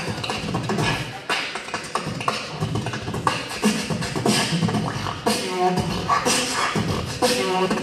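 Human beatboxing into a handheld microphone over a PA: a steady run of drum-like kick and snare sounds made with the mouth, joined about five seconds in and again near the end by wavering pitched vocal sounds.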